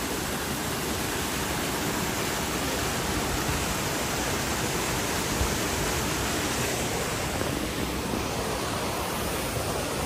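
Small rocky stream rushing and splashing down over stones: a steady, even rush of water.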